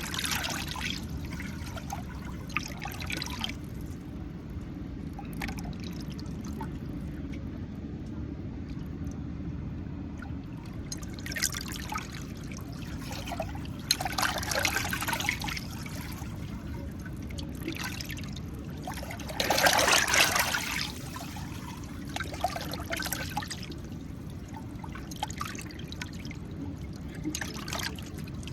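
Water splashing and trickling in irregular bursts over a steady low rumble, the loudest splash about two-thirds of the way through.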